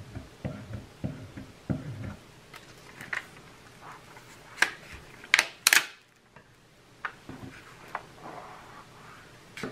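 Hands handling a diamond painting canvas and a pair of scissors: light rustles and soft taps, with a few sharp clicks about halfway through.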